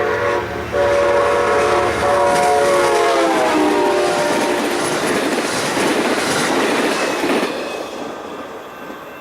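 Locomotive horn of a passing train, likely an Amtrak San Joaquin led by an F59PHI diesel. The horn sounds a multi-note chord with a short break, and its pitch drops as the locomotive passes. The rush of the train going by follows, fading near the end.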